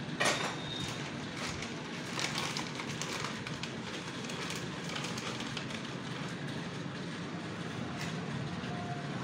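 Plastic packaging crinkling and rustling in a mechanic's hands as a new tractor oil seal is unwrapped, with a sharp click just after the start, over a steady workshop hum.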